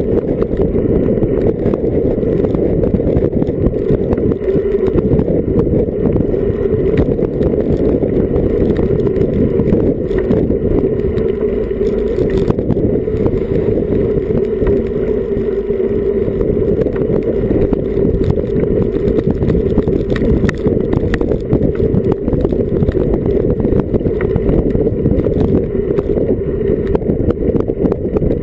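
Wind and road noise picked up by a bike-mounted action camera's microphone while riding a road bike: a steady, loud low rumble with no breaks.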